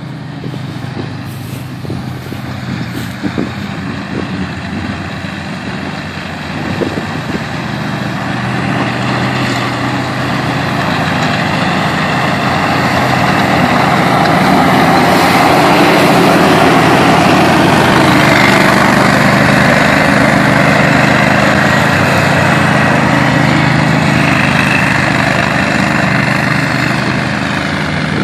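Hustler Super Z zero-turn mower's engine and spinning blades running under load while cutting tall dry grass. It grows louder as the mower passes close, about halfway through, then fades as it moves away.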